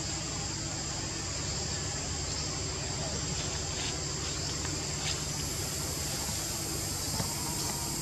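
Steady, high-pitched drone of forest insects over a low background hum, with a few faint ticks around the middle.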